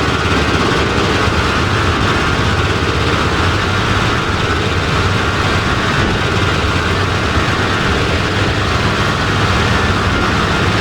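Dark synthesized ringtone music holding a steady, dense drone: a low hum under a noisy wash, with no clear melody or beat.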